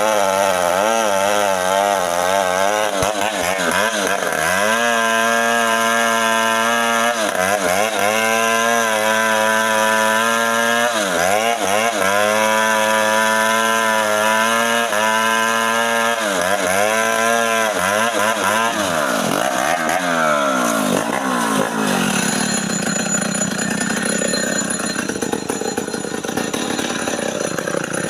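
Two-stroke chainsaw cutting guava wood. The engine pitch rises and sags over and over as it revs and takes the load of the cut, with steady full-throttle stretches of a few seconds. In the last several seconds the clear engine pitch gives way to a rougher, noisier sound.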